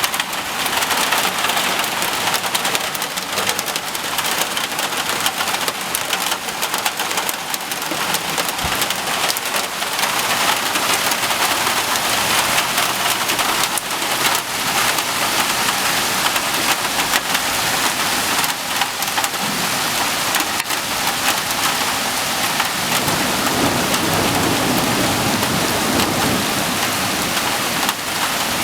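Steady heavy rain, dense with sharp drop ticks striking a hard surface. A low rumble swells in the last few seconds, and a thunderstorm is under way.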